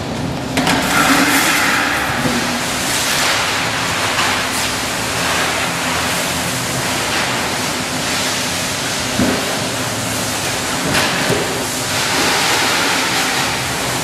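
Car wash spray wand blasting water against a car's body, a steady hiss of spray.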